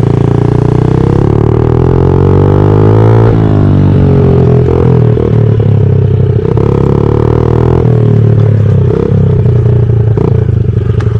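2020 Honda CRF50's small single-cylinder four-stroke engine, fitted with a Big Gun aftermarket exhaust, running loud under hard throttle up a hill. The pitch climbs for about three seconds, then drops sharply and rises and falls with the throttle for the rest of the ride.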